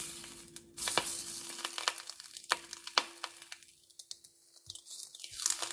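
Ham slices sizzling quietly in a frying pan, with a few sharp clicks of a utensil against the pan. The sizzle thins out in the second half.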